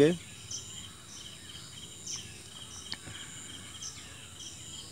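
Crickets chirping in a steady, evenly repeating pattern, with two faint clicks about three and four seconds in.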